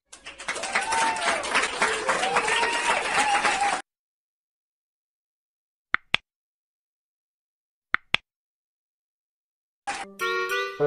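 Applause and cheering, with dense clapping and rising-and-falling whoops from several voices, cutting off abruptly about four seconds in. Then silence broken by two quick double clicks of a button-click sound effect, and a jingly music track starts near the end.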